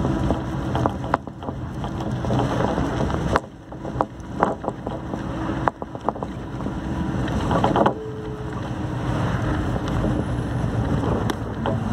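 Road noise of a moving vehicle heard from inside: a steady engine hum with tyre and wind rumble, broken by scattered rattles and knocks. The noise drops briefly twice, about a third and about half of the way in.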